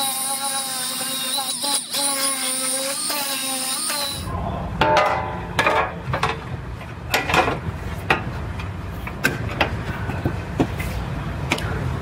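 A small handheld grinder with a disc whines steadily against the edge of a new sheet-metal dogleg panel, then stops abruptly about four seconds in. After that come scattered knocks and clicks of the loose metal panel being handled and fitted, over a low rumble of shop noise.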